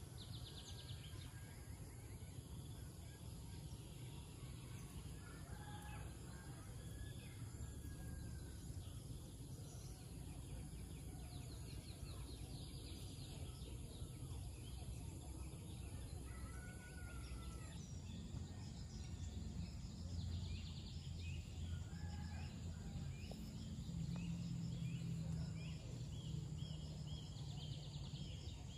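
Rural outdoor ambience: birds chirping and trilling on and off over a low steady hum.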